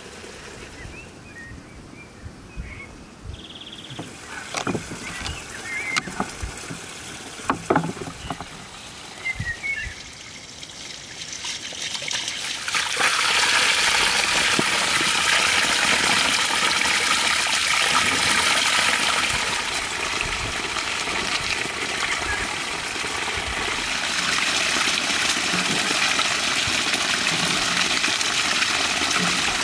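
Water pouring steadily over a stone ledge as bunches of fresh herbs are rinsed in the flow. It starts about twelve seconds in and stays loud. Before it there are quieter sounds with a few sharp knocks.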